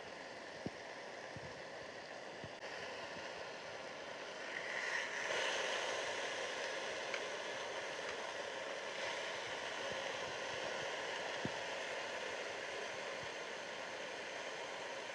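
A stack of bacon slices sizzling in a frying pan: a steady hiss that grows louder about five seconds in, with a couple of sharp pops from spattering fat.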